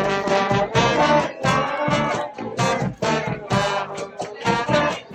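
Guggenmusik brass band playing loud carnival music: trumpets and trombones sounding held notes over regular drum hits.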